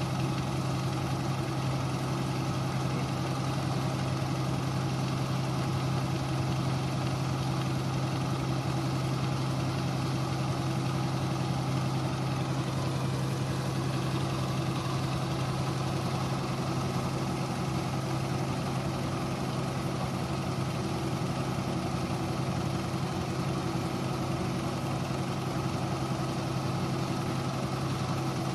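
New Holland combine harvester running steadily as it unloads grain through its auger, with a Fiat 480 tractor's diesel engine idling alongside: a constant low engine drone with no changes in pace.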